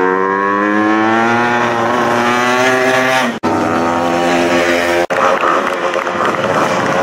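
Classic racing motorcycle engines at high revs, accelerating past; the first note climbs steadily in pitch for about three seconds. The sound breaks off abruptly twice, about three and a half and five seconds in, each time giving way to another bike's engine note.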